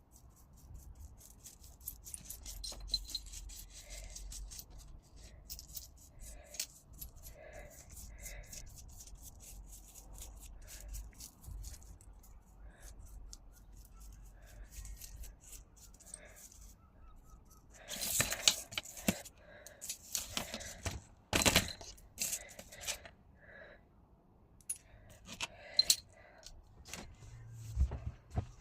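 Small pieces of scrap glass clinking and scraping against each other and a hard work surface as they are handled, with scattered light ticks and a few louder clusters of clinks in the second half.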